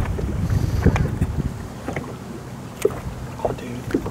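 Wind rumbling on the microphone aboard a fishing boat, heaviest in the first second or so, with a few light clicks and knocks.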